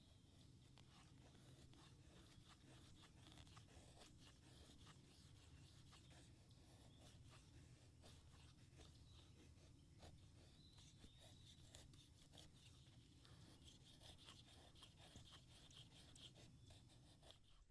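Faint, repeated scraping of a knife blade shaving thin curls off a wooden stick, stroke after stroke at an irregular pace.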